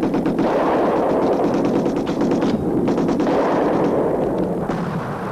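Sustained rapid machine-gun fire over a heavy battle rumble, pausing briefly about halfway through.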